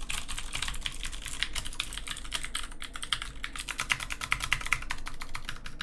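Rapid, irregular key presses on a Filco Majestouch 2 mechanical keyboard with Cherry MX Blue switches, many clicks a second. The switches are worn from six or seven years of use, and many of them sound really dull, their click faded.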